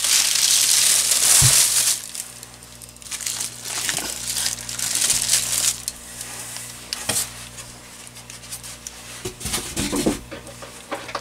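Plastic wrapping crinkling and rustling as bookshelf speakers sealed in plastic bags are handled and set down. It is loudest over the first two seconds, with a dull thump about one and a half seconds in, then quieter rustles and light knocks.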